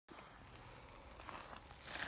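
Faint rustling and light crackling on dry, leaf-strewn ground, with a slightly louder crackle near the end.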